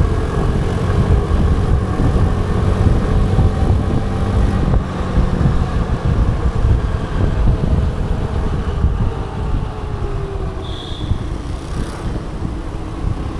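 Motor vehicle engine and road traffic running steadily, with a brief high-pitched tone about eleven seconds in.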